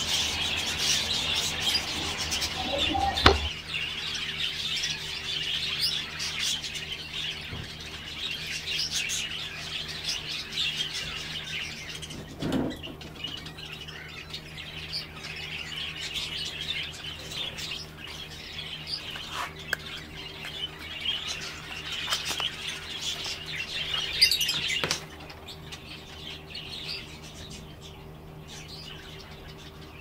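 A flock of caged budgerigars chirping and chattering continuously, with a few sharp knocks from bottles being handled.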